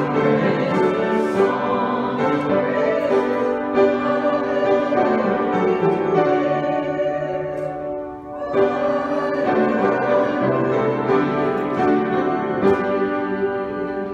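A small congregation singing a hymn to upright piano accompaniment, with a short break between lines about eight seconds in.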